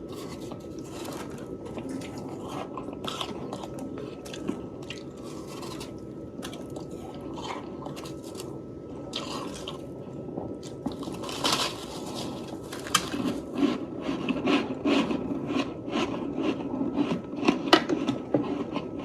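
Close-up chewing and crunching of soft freezer frost, many small crisp crackles and squeaky crunches in quick succession, growing busier and louder from about eleven seconds in.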